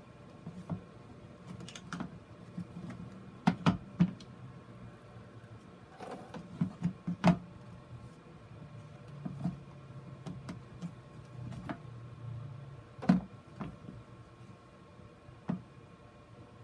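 Handling noise of a plastic grid mounting board being turned on a plastic bucket lid: scattered sharp clicks and knocks, three close together about three and a half to four seconds in, with quiet rubbing between.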